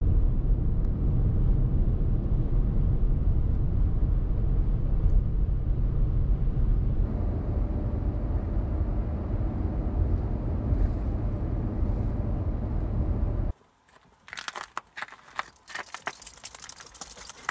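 Steady low road and engine rumble inside a moving car's cabin. It cuts off abruptly about thirteen and a half seconds in, and irregular metallic clinking and jingling follows, as a dog's leash and harness clips are handled.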